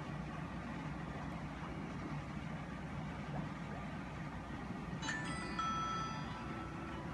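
Steady low hum of aquarium equipment, an air pump driving a bubbler through the tubing. About five seconds in, a single bell-like chime strikes and rings out for about two seconds.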